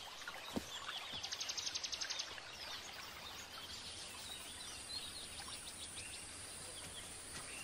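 Forest ambience with wild birds calling: a fast trill of rapid high ticks about a second in, then scattered short chirps over a steady background hiss.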